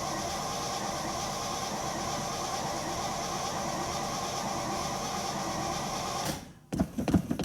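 A steady mechanical whir with several steady tones, even in level, that cuts off suddenly about six seconds in, followed by a few sharp clicks and knocks.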